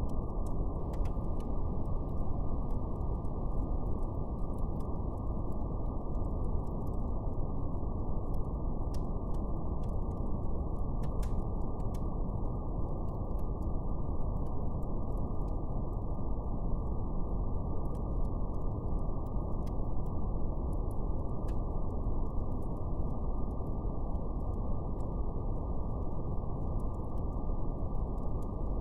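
Steady brown noise: an even, deep rush with nothing above the low and middle range, overlaid with a faint, sparse crackle of a fire.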